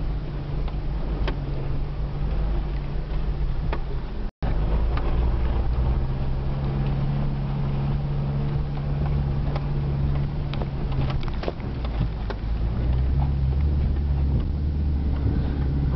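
Land Rover engine running steadily at low speed as it wades along a flooded, rocky lane, heard from inside the cab, with water noise and scattered knocks. The sound cuts out briefly about four seconds in.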